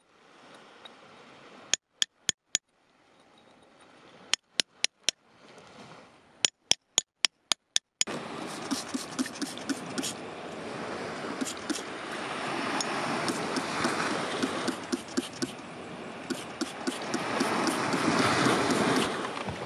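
Metal chisel tapping on rock in three quick clusters of sharp clicks, four or five strikes each. About eight seconds in it gives way to continuous gritty scraping and crumbling of soil and rock fragments, full of small clicks and growing louder, as the crystal is worked loose by hand.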